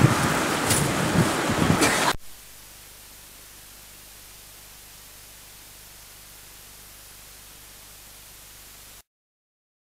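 A loud jumble of noise cuts off abruptly about two seconds in. It gives way to the steady, even hiss of analogue TV static, which stops dead about nine seconds in.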